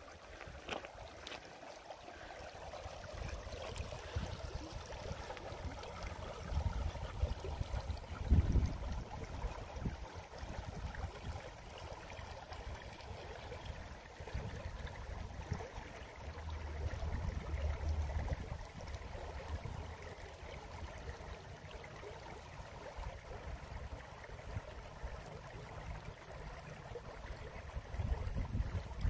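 Shallow river rippling and gurgling over a gravel riffle, a steady rush of water. Under it, irregular low buffeting on the microphone, with one sharper bump about eight seconds in.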